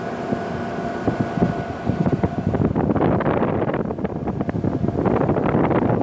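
1981 Emerson Quiet Kool 18,000 BTU air conditioner running, its cold discharge air blowing across the microphone. The blowing buffets the microphone in a ragged, gusty rush that starts about a second in.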